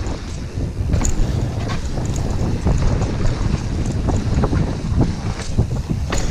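Wind buffeting the microphone over a steady rumble of tyres, with many irregular rattling knocks from an Orbea Rallon enduro mountain bike riding a rough trail.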